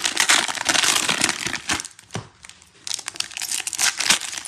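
Foil wrapper of a Donruss Optic basketball card pack crinkling and tearing as it is ripped open by hand. The crackle is loud for about the first two seconds, eases off, then picks up again near the end.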